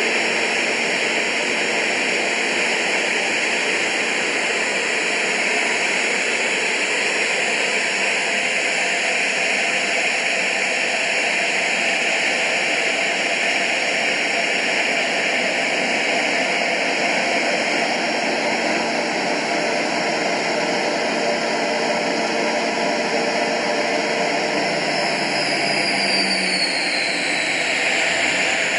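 Soko G2 Galeb's Rolls-Royce Viper turbojet running steadily in flight, heard from inside the cockpit as a dense, even noise, with a whine that falls in pitch near the end.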